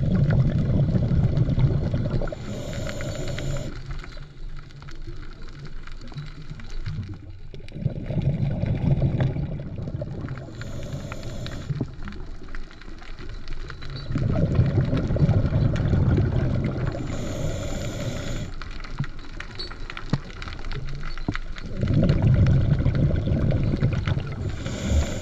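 Scuba diver breathing through a regulator underwater. A low rumbling burble of exhaled bubbles lasts two to three seconds, then a shorter hiss of inhalation follows, about every seven seconds: four breaths.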